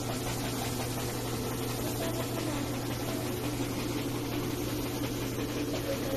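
DTF film printer running, a steady mechanical hum of its fans and motors with an even hiss over it.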